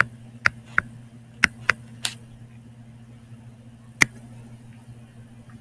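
Stylus tapping and clicking on a tablet screen during handwriting: about six short, sharp clicks, most in the first two seconds and one more about four seconds in, over a steady low electrical hum.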